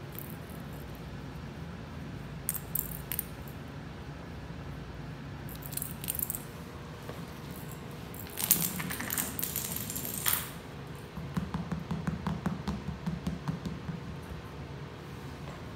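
A small hard toy ball clattering and rolling on a tile floor as a kitten bats at it. It comes in short bursts, the busiest about halfway through, then a run of quick light taps.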